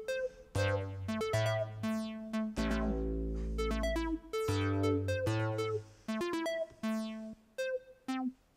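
Synthstrom Deluge groovebox playing synth notes: a run of short pitched synth notes over deeper bass notes, with a longer low chord held about three seconds in.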